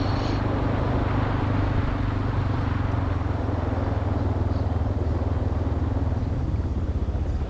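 Dual-sport motorcycle engine running steadily while riding, under a steady hiss.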